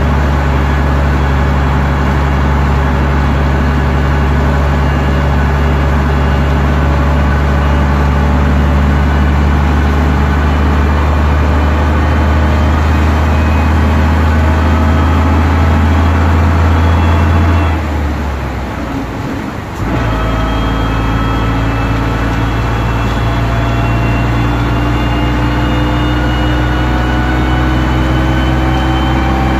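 Bristol VR double-decker bus running under way, heard from inside the upper deck: a heavy diesel note that climbs steadily in pitch as the bus accelerates. About 18 s in, the drive drops away for roughly two seconds as it changes gear, then the engine picks up at a lower pitch and climbs again.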